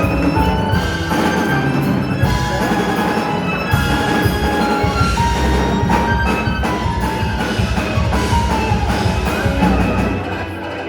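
Instrumental music with bell-like mallet percussion and drums.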